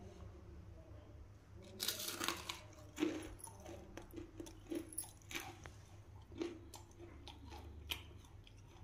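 A crisp, freshly fried onion pakoda crunching as it is bitten and chewed, a series of short crunches every second or so.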